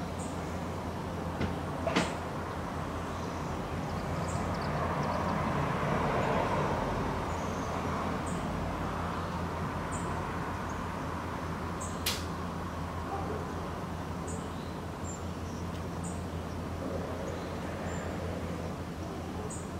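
Outdoor background noise: a steady low rumble with a constant low hum that swells for a few seconds early on and then settles. Faint short high chirps come every couple of seconds, with two sharp clicks, one about two seconds in and one near twelve seconds.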